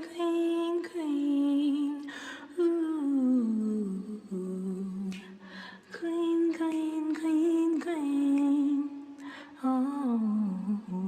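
A female voice humming a wordless melody with no accompaniment. It holds long notes in several phrases, some of them sliding down in pitch. This is a sung channel intro.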